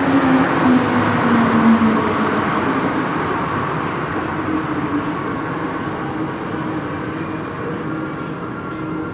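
Santiago Metro NS16 train slowing as it runs into a station: steady running noise fades gradually, the motor whine falls in pitch over the first two seconds, and faint high-pitched squealing tones come in near the end.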